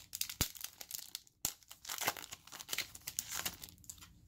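Foil trading-card booster pack being torn open at its crimped top and crinkled in the hands: irregular crackling and rustling of the foil wrapper.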